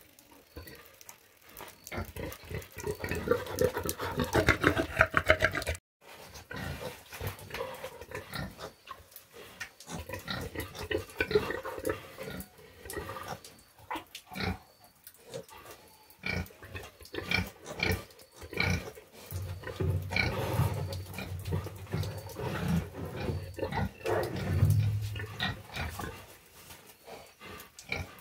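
Pigs grunting in a pen, a nursing sow and her piglets, among many short clicks and knocks. The grunting is loudest a few seconds in, breaks off for an instant, and deeper grunts come again later.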